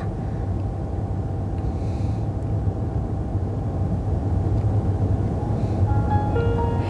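Steady low rumble of a car driving, heard from inside the cabin. A few held musical notes come in near the end as music starts to play.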